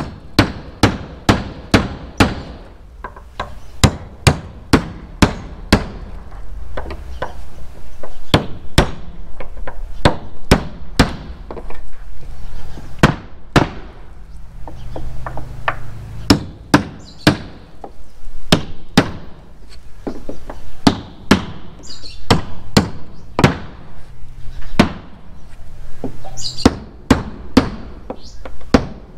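Hammer knocking protruding nails back into timber weatherboards, nails that have worked out with the movement of the boards. Sharp strikes come in runs of several at a time, about one to two a second, with short pauses between nails.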